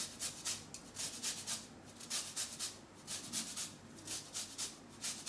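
Lemon rind scraped against a fine rasp grater, zesting the peel in a quick, even run of rasping strokes, about three or four a second.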